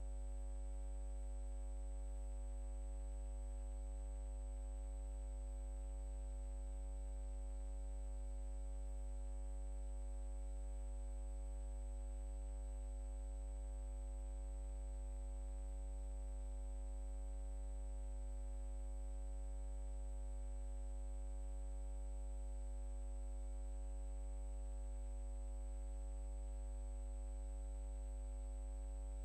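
A steady, unchanging electronic hum or drone made of several fixed tones, with a thin high whine above them and no change or event at all.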